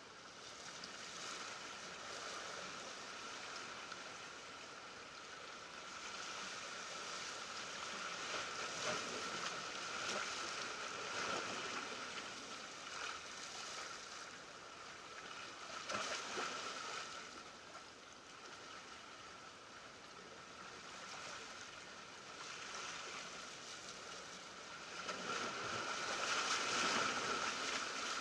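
Small ocean waves washing and splashing against shoreline rocks, coming in surges, the biggest near the end, over a faint steady high hum.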